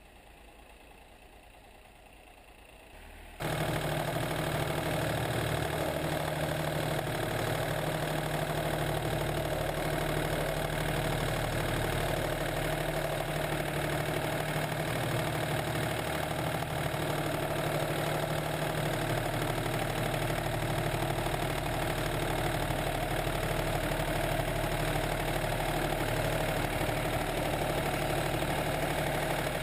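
Faint background for about three seconds, then the John Deere 770 compact tractor's three-cylinder diesel engine cuts in suddenly, heard up close and running steadily while the tractor plows snow.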